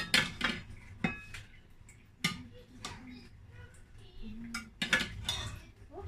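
Metal serving spoon scooping boiled rice from a pot into a ceramic bowl, knocking and scraping against the pot and bowl with several sharp clinks.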